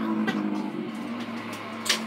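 Background music with sustained low notes.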